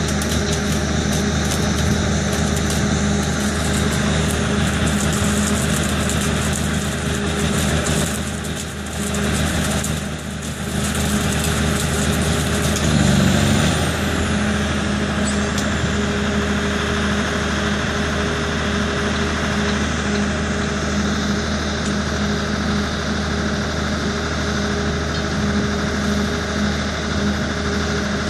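Steady drone of the rail welding truck's diesel engine running. For the first dozen seconds a crackling hiss from the flash-butt welding head spraying sparks rides over it. About thirteen seconds in there is a brief louder surge, then the engine hum runs on alone.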